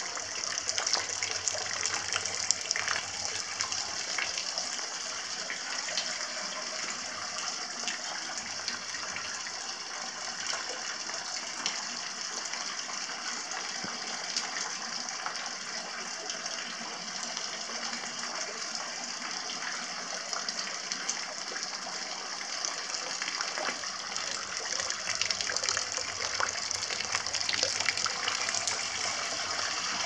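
Hot-spring water pouring steadily from a pipe spout into an outdoor bath tub, a continuous splashing gush with many small splashes on the pool's surface.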